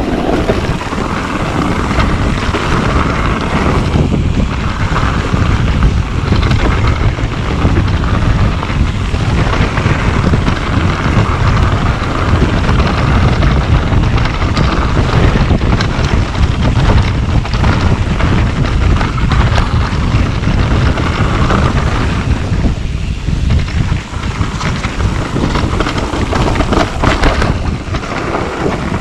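Wind rushing over the camera microphone on a moving mountain bike, over a steady low rumble of tyres rolling on a dirt trail. Scattered knocks and rattles from the bike over rough ground, more of them near the end.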